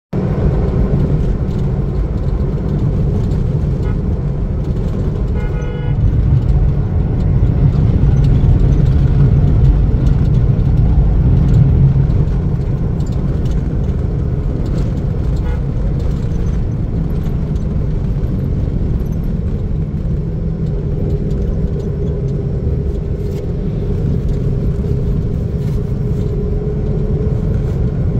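Engine and road rumble of a car driving along a highway, heard from inside the cabin, growing louder for several seconds after the first few. A short vehicle horn toot sounds about five seconds in.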